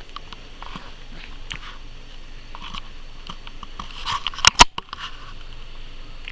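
A two-month-old baby's soft breathy mouth noises and lip smacks between coos. A couple of loud sharp clicks come about four and a half seconds in.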